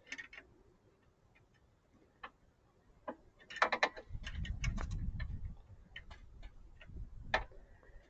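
Scattered sharp clicks and taps of a hand tool and metal A/C line fitting being worked under a car, with a cluster of clicks about three and a half seconds in and a low rumble just after it.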